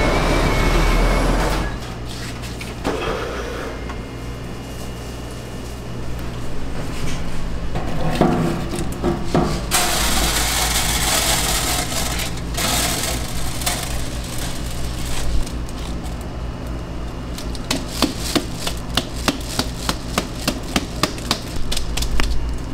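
Glutinous rice grains poured from a plastic colander into a rice mill's stainless-steel hopper, hissing and pattering on the steel over a steady low machine hum. Near the end comes a fast run of sharp knocks and clicks, several a second.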